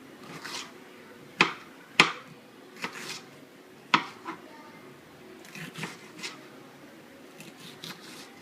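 Kitchen knife chopping bell peppers on a cutting board: a few sharp, irregular knocks, the loudest about one and a half and two seconds in, with softer scraping and rustling of the cut pieces between strokes.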